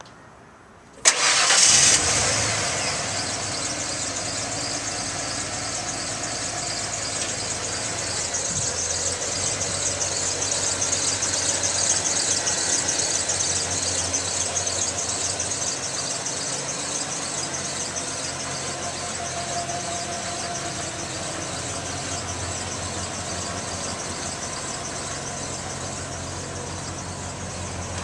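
1993 Ford F-150's 5.0-litre EFI V8 starting with a sudden burst about a second in, then idling steadily.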